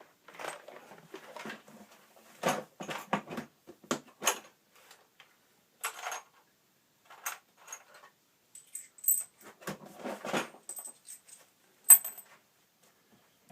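Small metal bicycle parts clinking and rattling as they are handled while headset spacers are fetched and fitted: a run of short, irregular clicks and clinks with pauses between them. A bright metallic ting near the end is the loudest.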